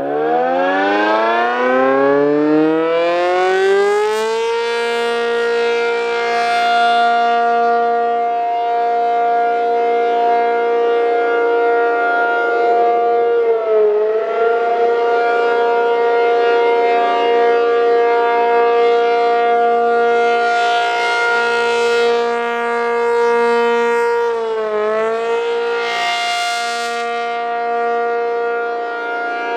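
ACA P-50 outdoor warning siren winding up over the first four seconds or so, then holding a steady tone on the alert signal. The pitch dips briefly twice, about fourteen and twenty-five seconds in.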